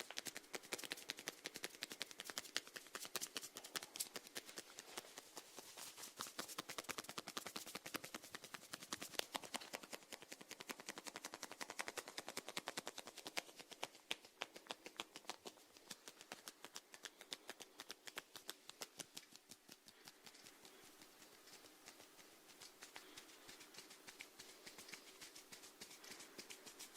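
Snails feeding, close-miked: a dense run of tiny crisp clicks, many a second, growing somewhat fainter about halfway through.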